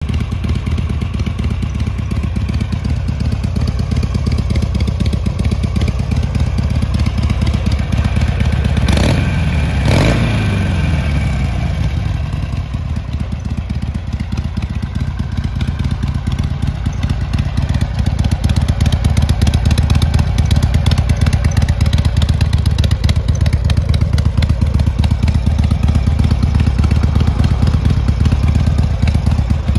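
Harley-Davidson Sportster XLH 883's air-cooled V-twin engine idling steadily. The revs rise briefly twice, about nine and ten seconds in, then fall back to idle.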